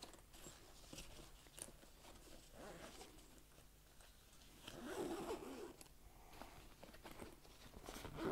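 A backpack being closed: its zipper drawn in short, faint stretches, with rustling of the bag's fabric and straps being handled.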